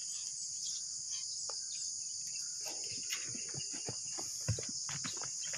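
Steady, high-pitched chorus of insects shrilling without a break, with faint distant voices and a couple of soft knocks about halfway through.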